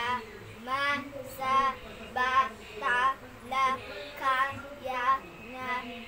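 A child's voice sounding out syllables one at a time, about nine drawn-out sing-song syllables at an even pace, as in a reading drill.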